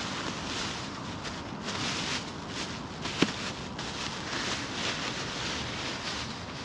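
Footsteps of a person walking outdoors, a soft scuff about twice a second, over steady wind noise on the microphone. A single sharp click a little past three seconds in.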